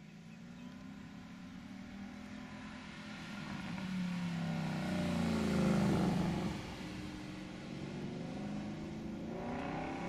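2012 Ford Mustang Boss 302's 5.0-litre V8 accelerating past through its side-exit exhaust, opened up by removing the restrictor plates from the H-pipe. The engine note climbs as the car approaches, is loudest about six seconds in as it passes, drops away, then climbs again near the end as it accelerates off.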